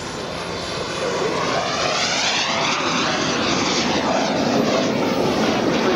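Turbine engine of a radio-controlled model jet in flight, a steady rushing jet noise that sweeps up and then back down in pitch as the jet flies past, about halfway through.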